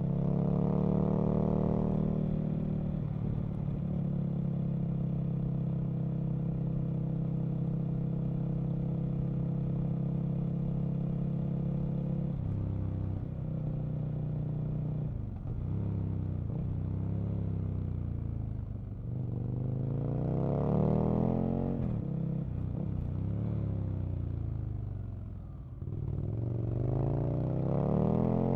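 Aprilia RSV Mille RP's 998 cc 60-degree V-twin, heard from the rider's seat: it revs up in the first couple of seconds, holds a steady pitch for about ten seconds, then drops and swings up and down several times as the rider accelerates and backs off.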